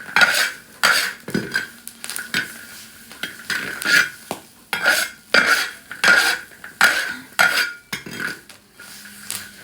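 Metal spatula scraping and stirring food in a cooking pan, in repeated strokes about one and a half a second, which stop near the end.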